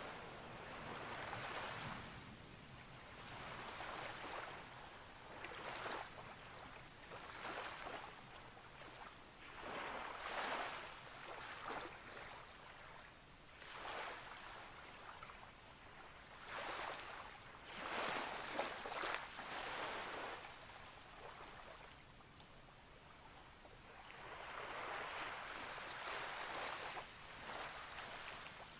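Small ocean waves washing and lapping in, one after another, as irregular swells of rushing water noise.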